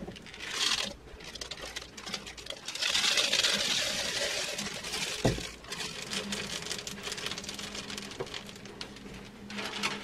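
Black sunflower seeds poured from a foil aluminium tray into a plastic container: a rushing patter of seeds sliding and falling, loudest from about three to five seconds in, with a single knock about halfway.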